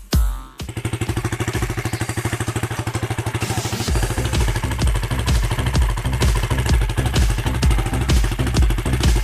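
Motorcycle engine idling with a fast, even pulse. A heavier low thumping about twice a second joins about four seconds in.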